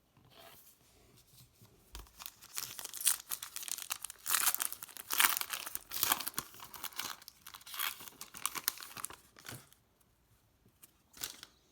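Foil wrapper of a trading-card pack being torn open and crinkled: a run of crackling rips over several seconds, then a short crinkle near the end.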